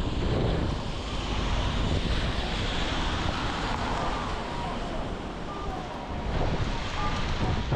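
Outdoor ambience with wind rumbling on the microphone over a steady background hiss, and a few faint short tones.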